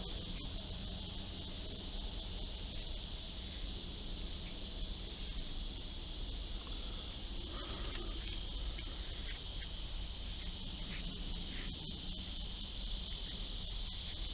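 Steady high-pitched chorus of insects, with a few faint clicks here and there.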